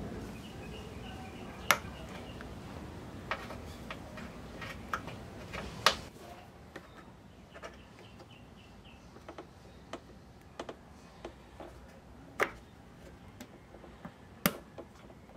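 Scattered sharp plastic clicks and light knocks from hands handling and plugging in the fuel-pump wiring connector and harness on a Honda Click scooter, a few seconds apart, over a low background hum that drops away about six seconds in.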